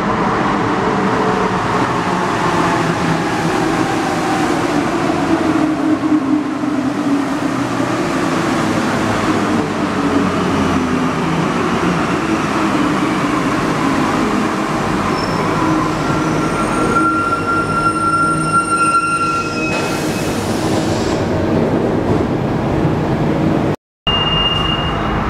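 Alstom NS-16 metro train pulling into an underground station, its motor whine falling steadily in pitch as it slows. Near the stop come steady high-pitched squeals.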